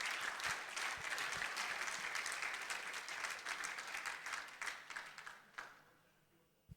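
Audience applauding, the clapping dying away about five seconds in and leaving near silence.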